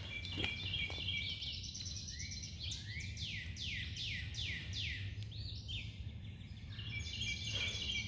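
Wild songbirds singing: a run of about six quick, high whistles sliding downward in the middle, with shorter chirping notes before and after, over a low steady background hum.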